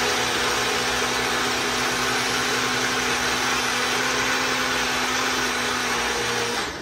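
Ninja personal blender running at a steady pitch, blending pancake mix and water into batter while its cup is pressed down on the motor base. It cuts off suddenly near the end.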